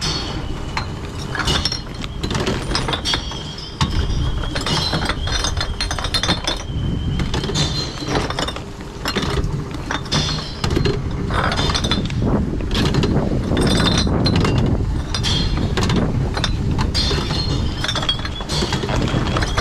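Glass bottles clinking and knocking against each other over and over, irregularly, as they are picked out of a plastic tub of empties for a bottle-return machine.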